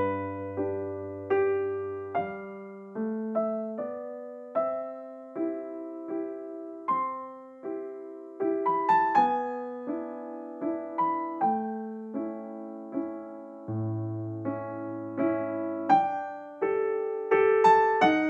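Background piano music: a slow melody of single struck notes, each fading away, over low bass notes held for a second or two.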